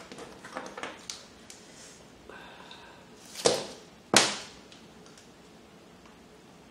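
Crab legs being picked apart and eaten close to the microphone. A few small sharp clicks of shell come in the first second, then two louder eating noises about three and a half and four seconds in: the first swells up, the second is sudden and fades away.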